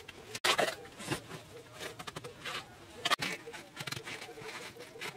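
Mud bricks and wet mud mortar being handled, scraped and set in place by hand, giving irregular scrapes, rustles and soft knocks.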